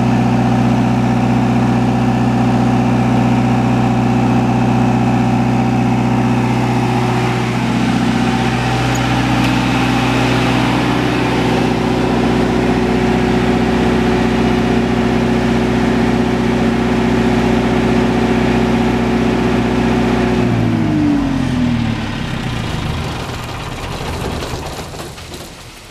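Perkins 4.236 four-cylinder diesel engine of an enclosed 40 kW generator running steadily, then shut down about 20 seconds in, its pitch falling as it spins to a stop.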